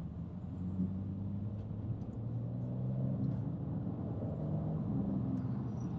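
BMW M4's S58 3.0-litre twin-turbo inline-six running under light load while driving, a steady low engine drone with road rumble.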